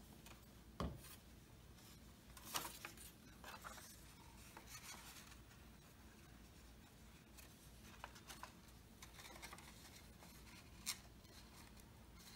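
Faint handling of paper: soft rustles and a few light taps and ticks while glue is applied to a folded paper part.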